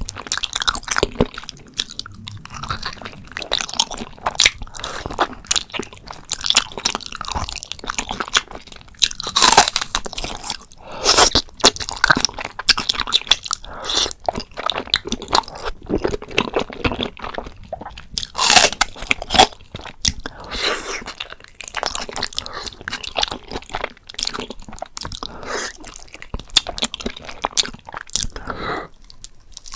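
Close-miked eating of spicy braised beef feet: a steady run of bites and chewing, with irregular crackling sounds and several louder bites part way through.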